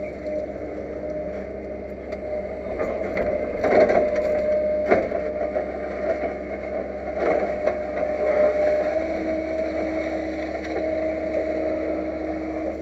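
Hydraulic excavator running, heard from inside its cab: a steady engine and hydraulic whine, with a few louder knocks and scrapes as the bucket digs into earth, about four, five and seven seconds in.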